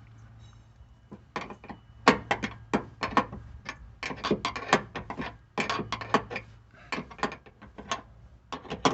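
Hand ratchet wrench clicking in quick, uneven runs as a bolt is turned, over a low steady hum.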